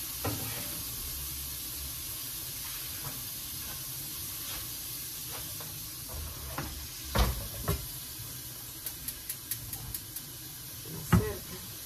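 Peppers sizzling in an oiled frying pan on a gas burner. Sharp metal clunks come about seven seconds in, as the pan is moved and set down on the grate, and again near the end, with a run of light clicks in between.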